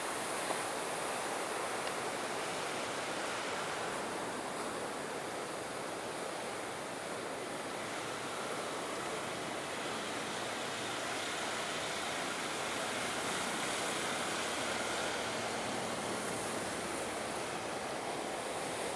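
Steady rushing outdoor background noise, even and unbroken, with no distinct tones or wheel clicks standing out.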